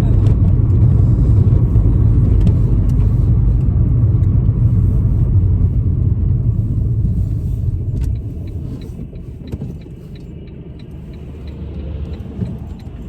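Car road noise heard from inside the cabin: a steady low rumble that eases off about eight seconds in. In the quieter part a light, regular ticking comes in at about three ticks a second.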